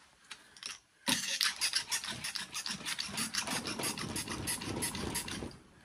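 A screwdriver turning out the screws that hold a transformer to a cash register's sheet-metal chassis: a rapid run of scraping clicks starting about a second in and lasting about four seconds.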